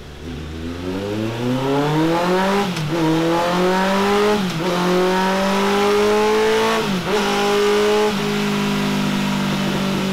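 Honda CB1300 SuperFour's inline-four engine running on a dynamometer through a Delkevic X-Oval titanium exhaust. The revs drop low at the start, then climb steadily with three brief dips, and hold steady from about eight seconds in.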